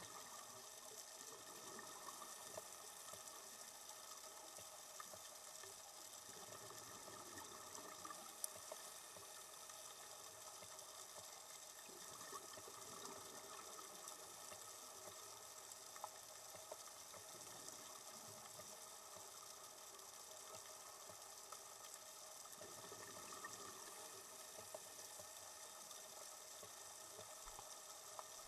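Faint underwater ambience: a steady soft hiss with a few scattered faint clicks.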